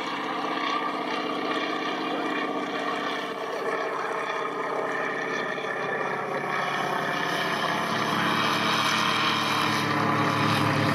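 Light aircraft's propeller engine running steadily, growing somewhat louder near the end.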